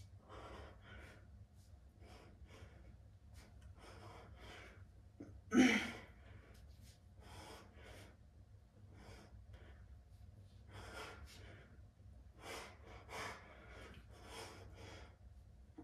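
A man breathing hard in quick, even breaths while straining through bicep curls, with one loud grunt about five and a half seconds in.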